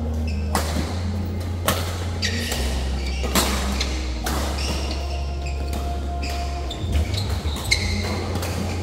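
Badminton rackets hitting a shuttlecock during a rally: several sharp hits at uneven intervals, roughly a second apart, with short high squeaks of shoes on the court floor. A steady low hum runs underneath.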